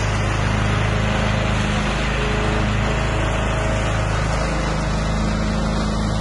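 Toro Wheel Horse 16-38 HXL lawn tractor running steadily with its mower deck engaged, cutting through tall grass.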